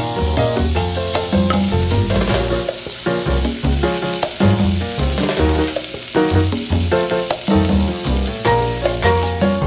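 Fat sizzling as it melts in a hot aluminium pot, a dense hiss that starts suddenly and thins out near the end. Latin background music with a steady beat plays underneath.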